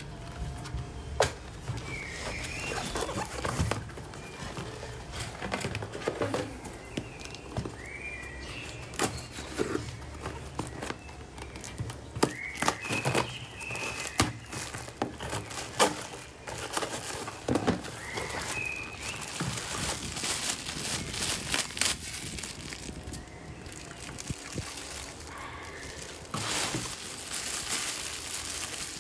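Cardboard box and plastic packaging being handled: irregular rustling and crinkling, with sharp taps and scrapes of cardboard flaps and a kitchen knife cutting at the box.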